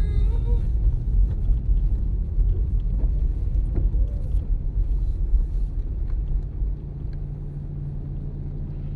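Low rumble of a car's engine and tyres heard from inside the cabin while driving slowly. About seven seconds in it eases off and settles into a quieter, steadier hum as the car slows behind traffic.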